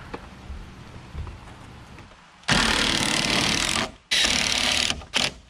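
DeWalt 20V cordless impact driver driving a screw into a wooden rafter, in three runs: about a second and a half, then most of a second, then a short blip as the screw seats.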